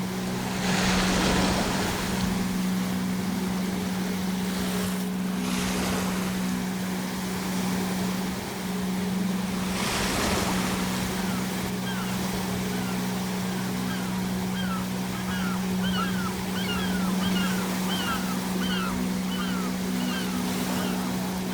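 Sea waves breaking, with two main crashes about ten seconds apart, and gulls calling over and over from about halfway through in short, falling cries. Beneath it all runs a steady low hum.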